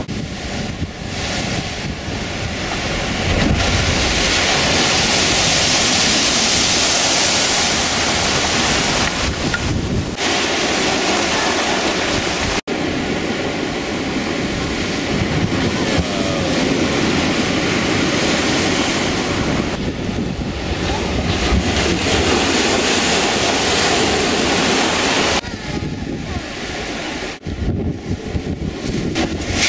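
Rough storm sea surging and breaking against a stone harbour wall, mixed with strong wind buffeting the microphone; the rush of surf swells louder twice.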